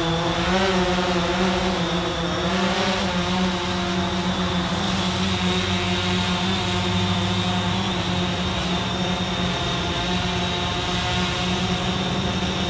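DJI Phantom 4 quadcopter flying low, its propellers giving a steady buzzing hum. The pitch wavers during the first few seconds, then holds steady.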